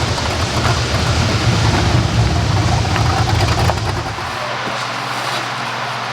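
A vehicle running, with heavy low rumble and road noise that eases about four seconds in to a steadier, quieter engine hum.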